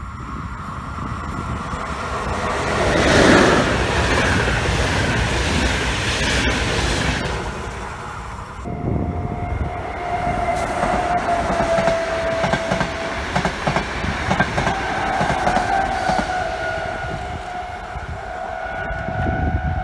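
A train passing on the line with wheel clatter, loudest about three seconds in. From about nine seconds a steady, slightly wavering high whine sets in and holds.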